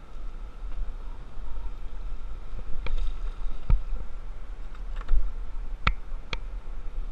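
Paddling a Dagger Caption solo canoe on flat water: paddle strokes in the water with about five sharp clicks and knocks in the middle of the stretch, over a steady low rumble.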